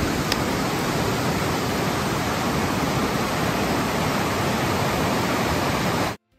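Steady rushing of a river in spate, fast white water swollen by heavy rain, which stops abruptly near the end.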